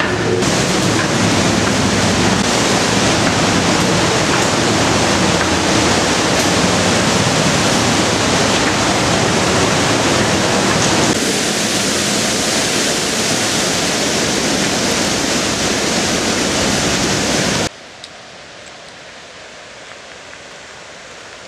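The Hammersbach torrent rushing loud and steady through a narrow rock gorge, heard from inside a rock tunnel. Near the end it cuts off abruptly to a much quieter, faint outdoor hiss.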